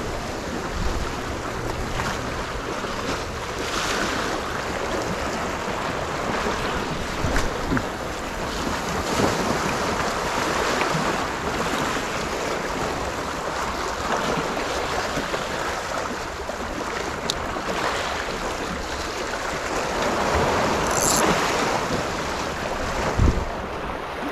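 Sea waves washing and foaming over shoreline rocks, swelling and easing every few seconds, with wind buffeting the microphone. A short thump comes near the end.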